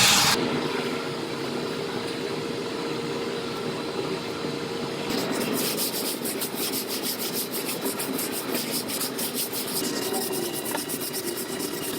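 Hand scraping and rubbing on a steel truck bedside panel during body filler work, with quick repeated strokes through the second half. A steady hum runs underneath in the first half.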